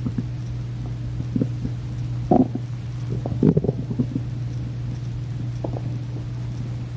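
Human stomach growling from hunger: irregular short gurgles over a steady low drone, the strongest about two and a half and three and a half seconds in.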